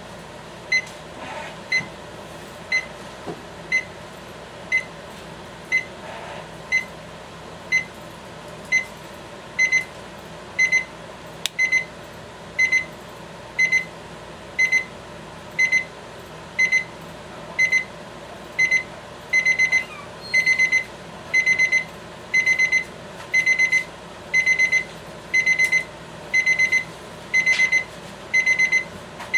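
RHYTHM electronic LCD alarm clock's alarm beeping about once a second in one high tone. The beeps get longer and louder as it goes on, and each becomes a quick pair about two-thirds of the way in: an alarm that steps up the longer it rings.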